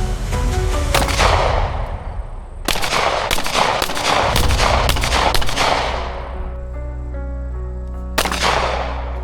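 Gunshots: one shot about a second in, a rapid string of shots from about three to six seconds, and one more near the end, each with a short echoing tail.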